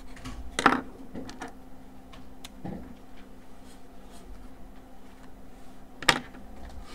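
Felt-tip marker writing on a paper legal pad, with faint scratchy strokes. Two sharp clicks stand out, one just after the start and one about six seconds in.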